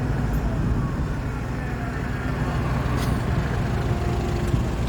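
Truck engine and road noise at driving speed: a steady low rumble with an even hum above it.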